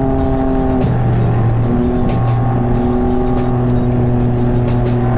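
Can-Am Ryker three-wheeler cruising at steady speed: the engine holds a steady drone, its pitch shifting slightly about a second in, with wind buffeting the microphone.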